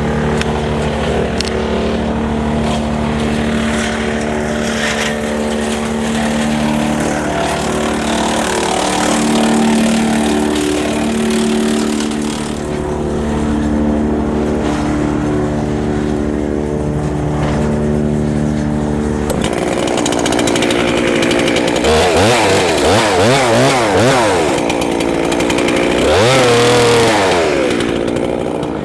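Tractor-driven Woodland Mills TF810 PRO PTO wood chipper running at a steady pitch. About two-thirds of the way through, its pitch wavers rapidly up and down for several seconds as it chips small branches, then settles back to a steady run near the end.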